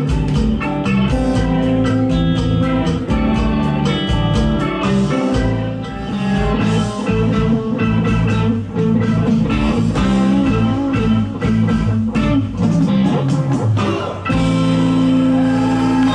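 Live band playing blues-rock: an electric guitar leads over bass, drums and keyboard, bending notes through the middle. About 14 seconds in, the music jumps abruptly to a different passage.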